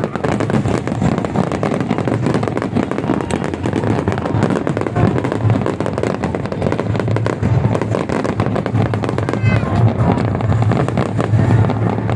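Aerial fireworks display with many shells bursting in rapid succession: a dense, continuous crackle of small bangs.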